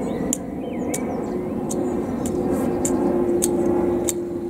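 A steady low engine drone with a hum that sets in about a second in and holds, with scattered short high ticks over it.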